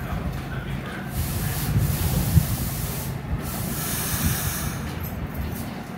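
R68 subway train noise: a steady low rumble under a hiss that swells and fades twice.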